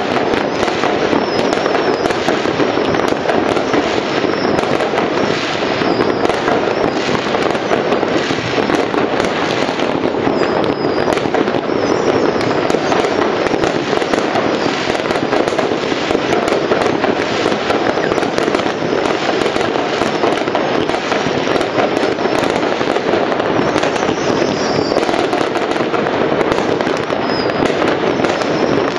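Dense, unbroken crackling and popping of many fireworks and firecrackers going off across a whole town at once. It is a steady din with no single bang standing out, and now and then a brief high whistle.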